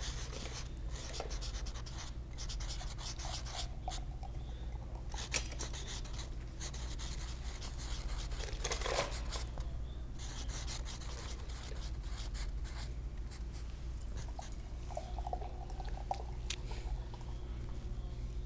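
Felt-tip marker scratching across a canvas in short strokes as a signature is written, with a few small clicks, over a steady low hum.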